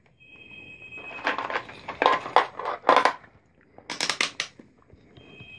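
Digital multimeter beeping: a steady high beep about a second long near the start and again near the end, as the meter is switched to diode-test mode. In between, clicks and rattles of the meter being handled and its rotary selector dial turned.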